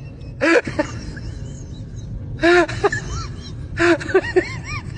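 An animal's short pitched calls, each rising and falling, in several groups with a quick run of higher ones near the end, over a steady low background noise.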